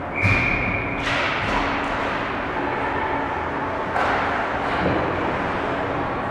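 Ice hockey game sounds in an arena: a sharp knock with a high ringing tone held for under a second, a few quick clacks of sticks and puck, and another knock about four seconds in, over the rink's steady hum.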